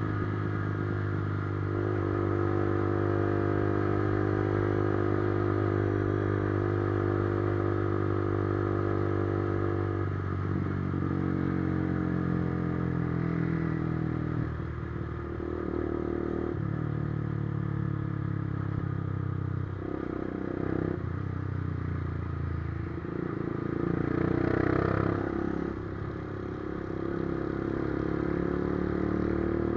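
Motorcycle engine running on the move, holding a steady note for about ten seconds, then dropping and changing pitch several times.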